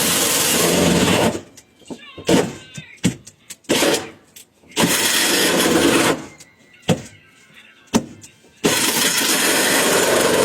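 Power tool cutting the exhaust/intake hole for a diesel heater through the van's sheet metal, run in stop-start bursts with a couple of sharp clicks between them, then running steadily for the last two seconds.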